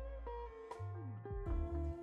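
Background music: guitar notes over a deep bass line with a steady beat.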